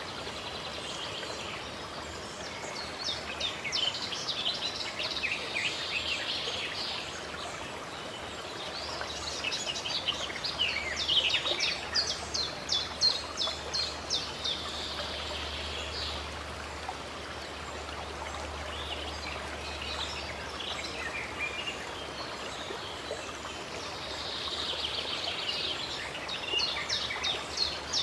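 Steady running water from a fountain or spring, with songbirds singing over it in three stretches of quick repeated high notes.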